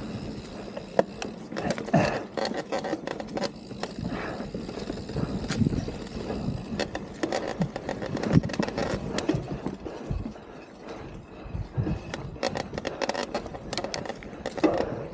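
Mountain bike being ridden over a dry dirt and leaf-litter trail: tyres rolling and crunching on the ground, with irregular clicks and rattles from the bike jolting over bumps.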